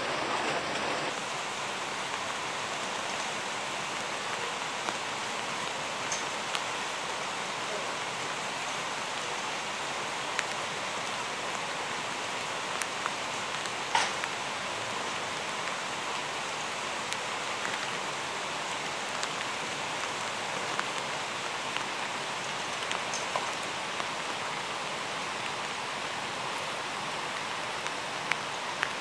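Steady hiss of water, with a few faint ticks and one sharper tap about halfway through.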